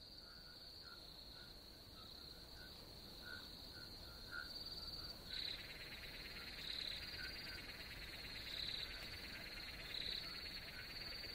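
Faint night ambience of crickets trilling and frogs calling, with a denser insect chorus joining about five seconds in.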